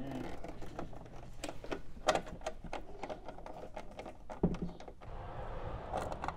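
Small metallic clicks and ticks of a nut driver turning the mounting nut of an old filter capacitor on a tube amp chassis, with a sharper click about two seconds in and a knock about four and a half seconds in. A rustling scrape near the end.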